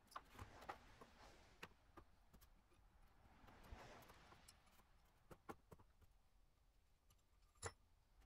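Faint, scattered metal clicks and taps from a C-clamp valve spring compressor being worked on a Volvo D24 diesel cylinder head while the valves are removed. There is a soft rustle near the middle and the sharpest click near the end.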